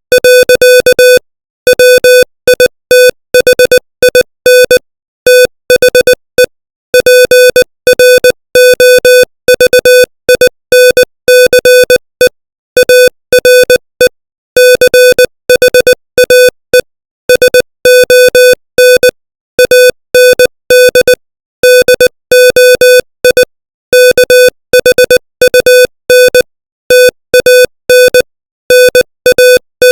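Morse code sent at 20 words per minute: a single-pitch electronic beep keyed on and off in quick dots and dashes, with short gaps between letters and longer ones between words.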